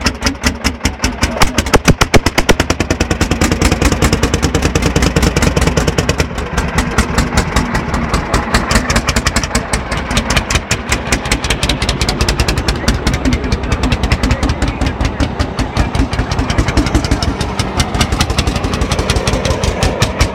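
Landini hot-bulb (testacalda) single-cylinder two-stroke tractor engine running, a fast, even beat of exhaust pulses, loudest about two seconds in.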